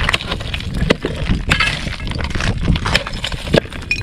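Heavy-duty 4140 steel ice chisel striking and breaking chunks of lake ice: a series of sharp cracks and glassy clinks.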